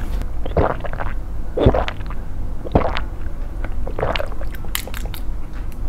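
Drinking from a carton drink through a straw: four sips and swallows about a second apart, then a few small clicks near the end.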